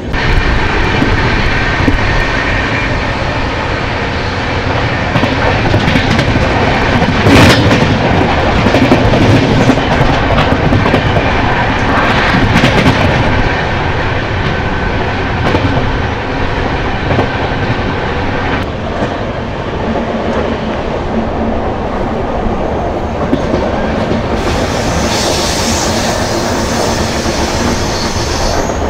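Double-decker express train running at speed: a steady rumble and clatter of the wheels on the track, with a single sharp knock about seven seconds in and a higher hiss for a few seconds near the end.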